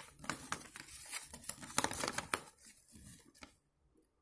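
Packaging rustling and crinkling as it is handled, with rapid crackles, stopping about three and a half seconds in.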